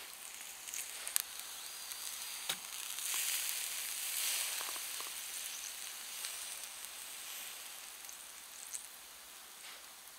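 Meat sizzling on a wire grill over a campfire as it is turned over. The hiss swells a few seconds in and then slowly fades, with a few sharp clicks and crackles.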